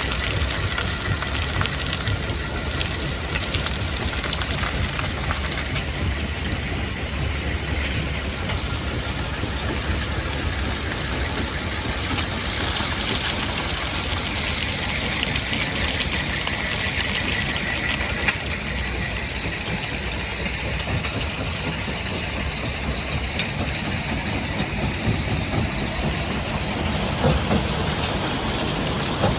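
Heavy stone-crushing plant machinery running steadily: a diesel engine's low drone under a dense mechanical clatter, with a few faint knocks.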